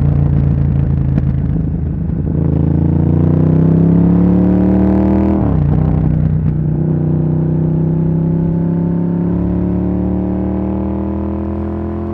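Ducati Monster S4R's L-twin engine and exhaust under way, the pitch climbing as it accelerates, then dropping sharply about five seconds in with an upshift, then holding and rising slowly again at cruise.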